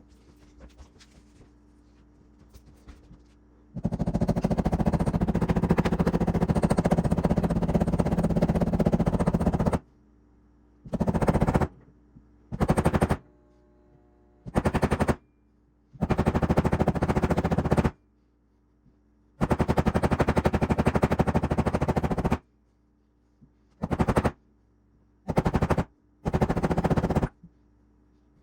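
Impact wrench hammering in bursts: one long run of about six seconds, then eight shorter bursts with pauses between them.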